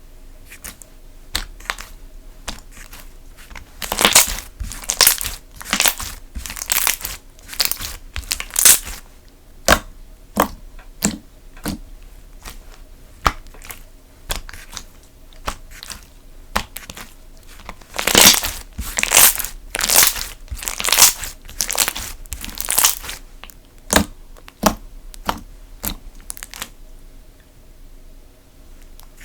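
Slime being pressed, poked and stretched by hand, giving a run of short sticky crackles and squishes, about one or two a second. They come thickest a few seconds in and again about two-thirds of the way through.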